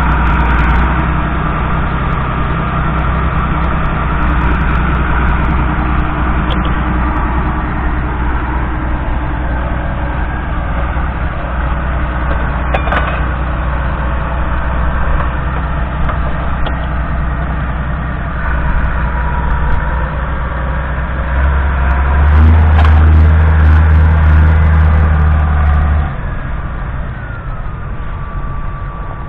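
Massey Ferguson 6160 tractor's 6.0-litre six-cylinder diesel engine running steadily as it pulls a two-furrow reversible plough. It grows louder for a few seconds near the end, then eases back.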